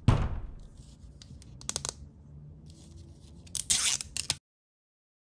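A sudden thump that fades over about a second, a few sharp clicks, then a short burst of plastic blind-bag packaging being torn open. The sound cuts off abruptly to dead silence.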